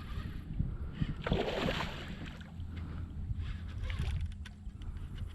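A just-landed redfish thrashing and splashing at the side of a kayak, with a splash about a second in and scattered knocks against the hull over a low steady rumble.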